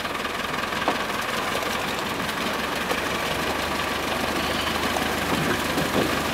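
An engine idling steadily with a low hum, with a few light knocks.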